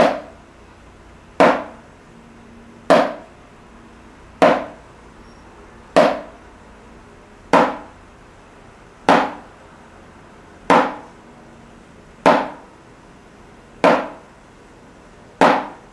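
Drumsticks striking a practice pad in single strokes, evenly spaced about one every second and a half (40 a minute), with no metronome click: a timekeeping test played by feel. There are about eleven strokes, each a sharp tap with a brief decay.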